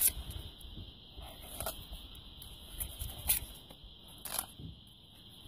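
Butcher knife cutting along a greenbone butterfish, giving a handful of short scrapes and taps at irregular moments over a steady faint hiss.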